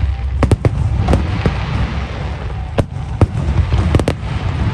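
Aerial fireworks shells bursting in a barrage: about ten sharp bangs at uneven spacing, several in quick succession in the first second and a close pair near the end, over a steady low rumble.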